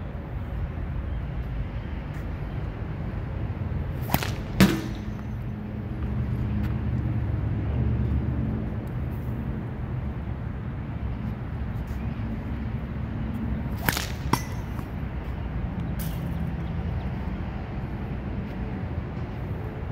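Tennis-ball sling thrown twice, each throw a sharp whip-like crack followed about half a second later by a second sharp knock, over a steady low rumble.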